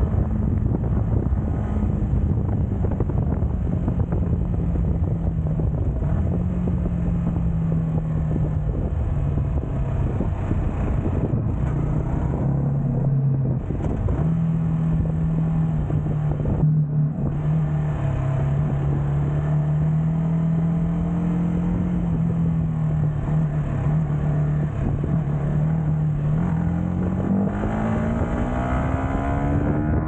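Yamaha MT motorcycle engine and exhaust heard from the rider's seat while cruising, holding a fairly steady pitch with small changes, then rising steadily under acceleration near the end.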